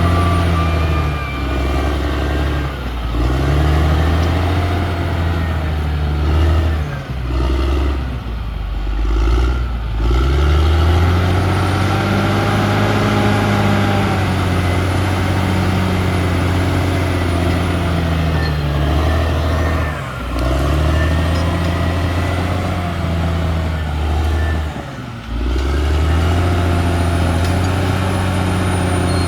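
CAT D6R XL bulldozer's diesel engine working under load, its pitch rising and falling over and over as the dozer pushes and eases off, with a few brief drops in revs.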